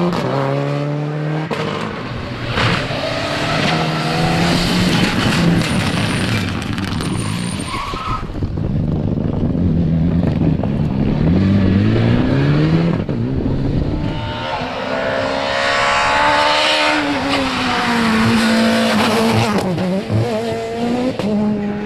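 Rally cars, among them a Subaru Impreza and a Mitsubishi Lancer, pass one after another in separate runs. Their engines rev up through the gears, each climb ending in a fall of pitch at the change, then drop off as they lift for the bends.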